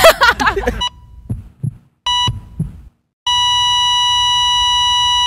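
Heart-monitor sound effect: a few low heartbeat thumps and one short beep, then, about three seconds in, a continuous high-pitched flatline tone, the monitor's signal that the heart has stopped.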